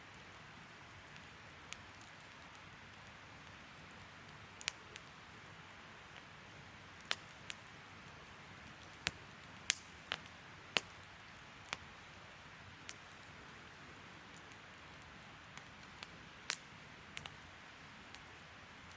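Wood fire crackling: irregular sharp pops and snaps, some louder, over a faint steady hiss of burning.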